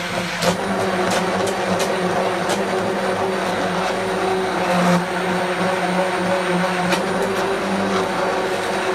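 Electric hand blender running steadily, its blade puréeing carrot and coriander soup in a stainless steel pot, with a few sharp clicks along the way.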